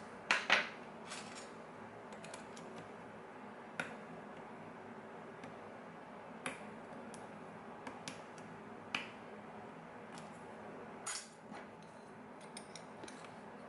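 Faint, scattered small clicks of lock picks working inside a plastic-body Master Lock padlock, a few irregular ticks several seconds apart.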